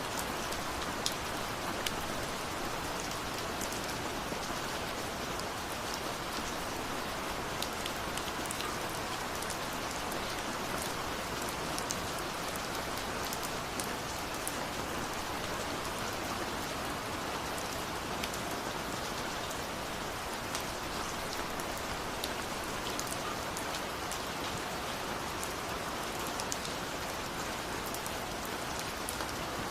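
Steady rain falling, an even hiss with many separate drops ticking close by throughout.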